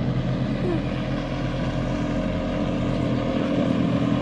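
Motorboat engine running steadily at speed as the boat passes on the river, a continuous even drone.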